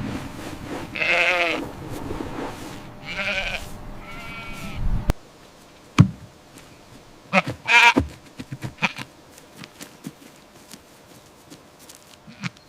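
A bleating farm animal: three quavering bleats in quick succession, then after a break one more bleat, with scattered light clicks and taps around it.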